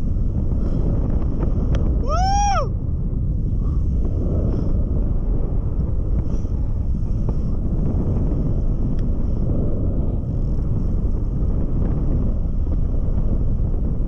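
Wind rushing over the camera microphone during a tandem paraglider flight, a steady loud rumble. About two seconds in, a short rising-then-falling hoot-like whistle sounds once.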